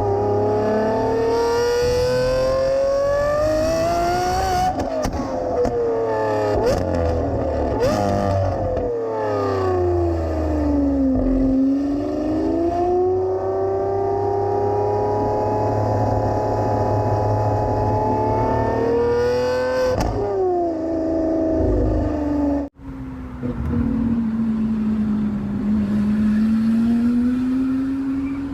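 Lamborghini Aventador SVJ's naturally aspirated 6.5-litre V12 engine revving and pulling, its pitch climbing and falling several times with quick drops like gear changes. The sound briefly cuts out about 23 seconds in, then the engine note dips and climbs again.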